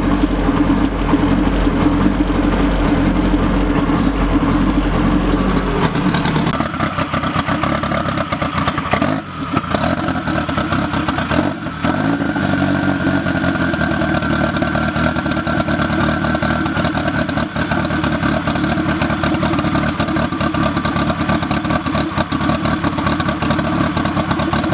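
Turbocharged Honda K-series engine running at a steady note. The sound changes abruptly about six seconds in, losing much of its deep rumble, and dips briefly twice after that.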